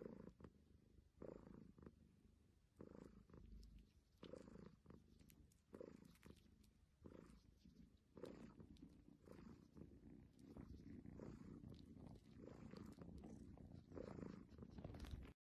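Abyssinian cat purring faintly, the purr swelling and fading in waves about every second and a half with each breath.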